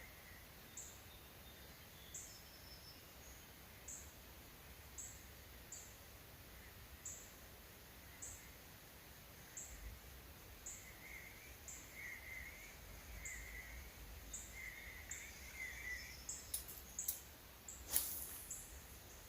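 Birds calling at dusk over a faint steady outdoor background: a short high chirp repeated about once a second, joined in the second half by a run of lower warbling notes. A single sharp click sounds near the end.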